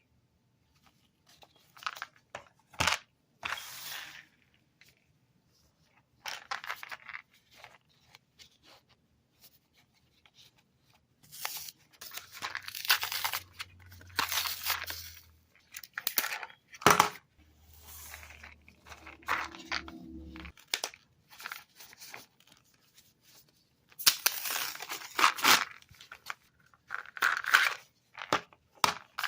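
Cough drop packaging being torn and handled open, in irregular spells of tearing and rustling with short quiet gaps between.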